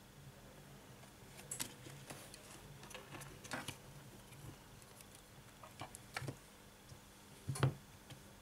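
Scattered light clicks and taps of a disassembled smartphone being handled: tweezers and fingertips against its plastic frame, battery and display module, with the loudest knock near the end as the parts are set down.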